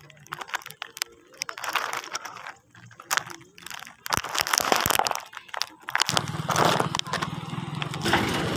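Crackly, crunching footsteps on a gritty concrete road. About six seconds in, a motorcycle engine joins in with a steady low drone that grows louder as the bike approaches.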